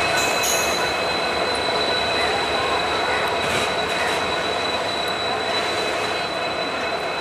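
Passenger train running across a rail bridge: a steady rumble of wheels on rails with a thin, high, steady wheel squeal above it, fading slowly toward the end.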